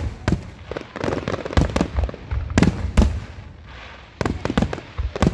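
Aerial fireworks shells bursting in quick succession, a dense string of bangs with a short lull about three and a half seconds in before the bursts pick up again.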